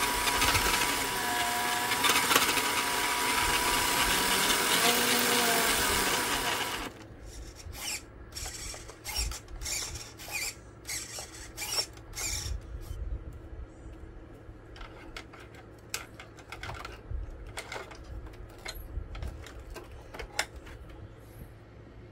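Electric motor and drivetrain of a 1/6-scale FMS Jimny RC crawler whirring with its wheels spinning in the air, the pitch wavering, until it stops abruptly about seven seconds in. After that come scattered light clicks and knocks.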